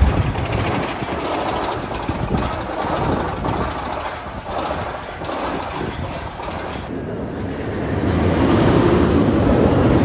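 Roller coaster trains rumbling along track carried on wooden support structures, growing louder near the end as a train passes close.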